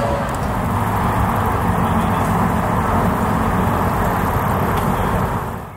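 Steady road-traffic noise from an elevated expressway, an even rumble with no distinct events, fading out near the end.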